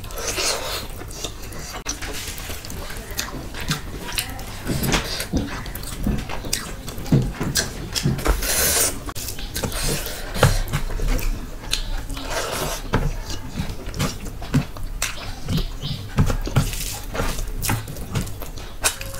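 Close-miked eating sounds: wet chewing and lip smacks, with irregular sharp clicks and smacks, and squelching as rice and curry gravy are mixed and scooped by hand.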